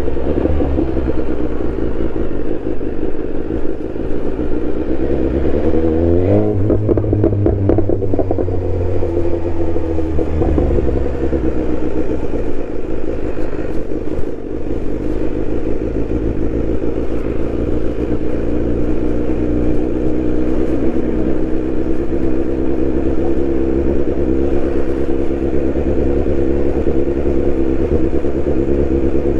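BMW S1000R's inline-four engine running loud and steady, with one rev about six seconds in that climbs in pitch and sinks back over the next few seconds.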